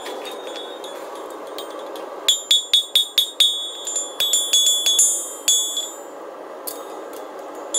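Farrier's hammer striking a horseshoe on the anvil, each blow ringing out high and clear. A quick run of about four to five blows a second starts about two seconds in, pauses briefly, runs again, and then a couple of single strikes follow near the end.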